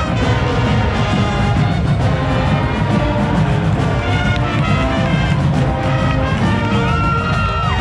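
Marching band playing, led by its brass horns, loud and steady, with one note bending up and back down near the end.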